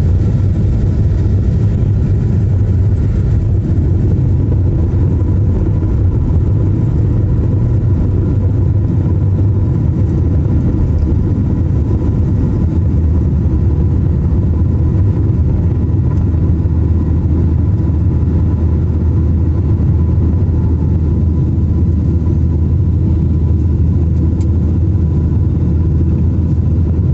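Airliner jet engines running for takeoff, heard from inside the cabin as a loud, steady deep rumble with a faint steady whine over it.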